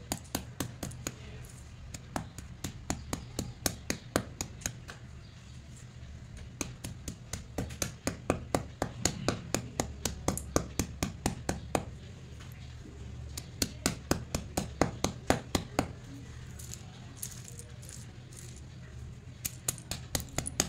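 A heavy round stone pounding a pile of white slate pencils, each blow a sharp crack as the chalky sticks snap and crunch. The strikes come fast, about four or five a second, in runs with short pauses.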